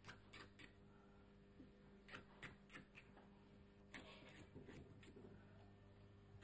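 Near silence with faint, scattered small clicks and light scrapes of a metal key being handled on a tabletop, over a low steady hum.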